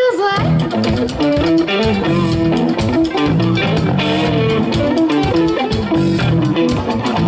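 Live amplified rock band playing: electric guitars and bass guitar over a drum kit, with a steady beat and held guitar notes.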